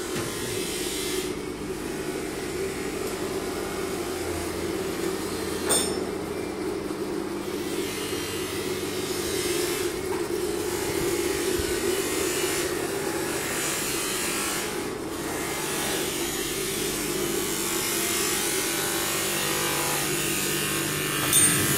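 Steady drone of a running workshop electric motor with an even hiss over it. There is a sharp knock about six seconds in and a short clatter near the end.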